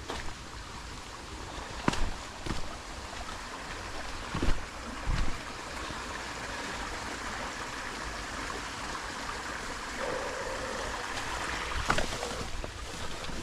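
A jungle creek's water running steadily, with a few footsteps in the first five seconds and again near the end.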